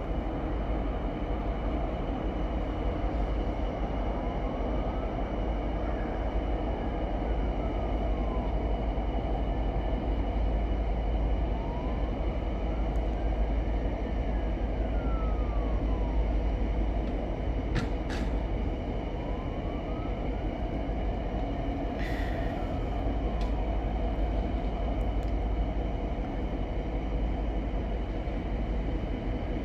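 VIA Rail passenger cars rolling past with a steady rumble of wheels on rails. A faint whine rises and falls in pitch three times, and a couple of light clicks come about two-thirds of the way through.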